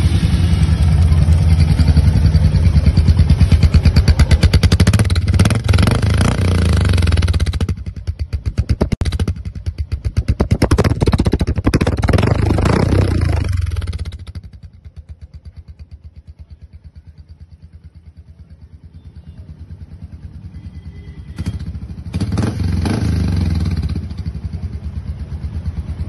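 Royal Enfield Meteor 350's single-cylinder engine revving through a Red Rooster Polestar Pro aftermarket silencer. It is held at high revs for several seconds, then blipped a few times, then settles to a steady idle about halfway through, with one more short rev near the end.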